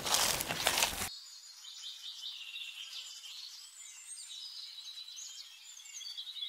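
About a second of rushing noise cuts off abruptly. It gives way to faint, high-pitched bird chirps over a steady insect trill.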